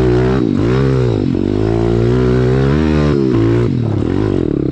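Pit bike's small single-cylinder four-stroke engine running under throttle on a rough trail. The revs rise and fall several times as the rider works the throttle, with a short drop a little past three seconds in.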